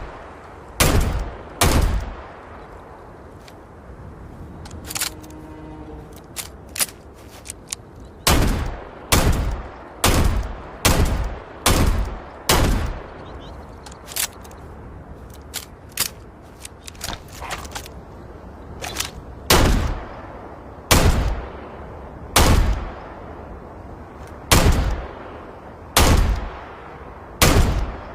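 Razorback revolver gunshot sound effect: single loud shots fired one at a time, about twenty in all at uneven spacing, each followed by a short ringing tail, with lighter clicks between some of the shots.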